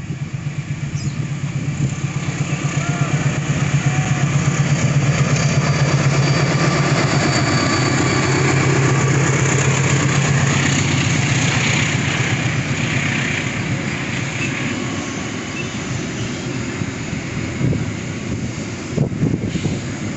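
Container freight train passing at speed: a diesel locomotive's low engine drone that swells and fades over the first dozen seconds, then the steady rhythmic clatter of the wagons' wheels over the rails.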